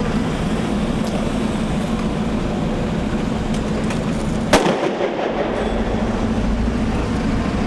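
Steady low rumble of street noise and heavy vehicle engines, broken about four and a half seconds in by a single sharp bang.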